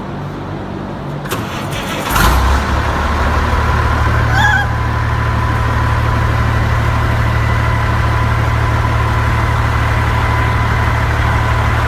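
Truck engine starting about two seconds in with a sudden burst, then idling steadily with a thin steady high whine over the low running sound; one short high chirp a couple of seconds after it catches.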